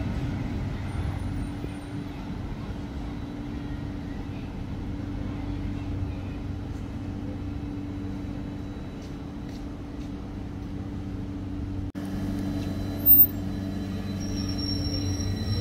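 Electric tram of the London Tramlink approaching and pulling in to the stop, with a steady hum of its motors and equipment. About thirteen seconds in there is a sudden, very short loud sound, and near the end a high thin squeal.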